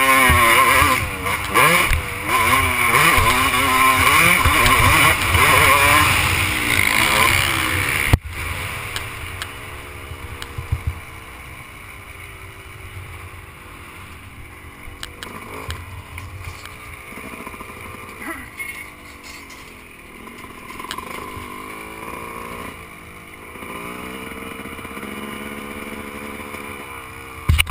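Motocross dirt bike engine revving hard, its pitch rising and falling with the throttle and gear changes. About eight seconds in the level drops sharply, and the engine runs quietly at low revs with occasional light blips as the bike rolls slowly.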